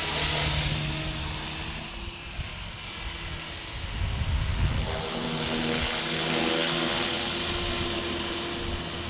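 Electric RC helicopter in flight: rotor blades whirring over a steady high motor whine, the pitch and loudness shifting as it manoeuvres, swelling about a second in and again about four seconds in.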